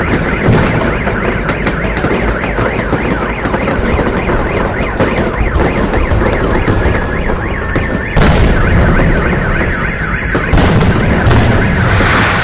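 Fireworks going off: sharp bangs and crackles, with a heavy boom about eight seconds in and two more bangs near the end. Under them runs a siren that wails up and down, like a car alarm set off by the blasts.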